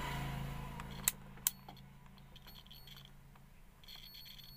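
Handling of a Mastech digital multimeter and its test probes: two sharp clicks just after a second in and a few fainter ticks, over a low steady hum. Near the end a faint high steady tone comes in.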